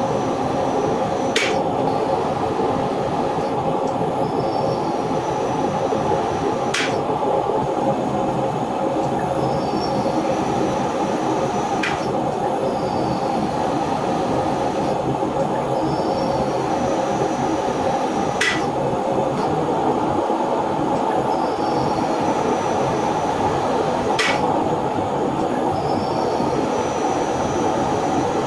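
Electric cold-forging roller machine running steadily, its cam-shaped rollers pressing and flattening the red-hot end of a steel bar, with a sharp click about every five to six seconds.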